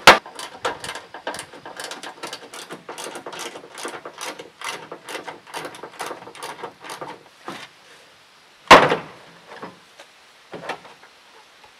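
A ratchet wrench clicking rapidly as it backs out the fasteners of a Toyota Tacoma's stock tail lamp. About nine seconds in there is one loud knock as the plastic tail lamp assembly comes free, followed by a couple of lighter knocks.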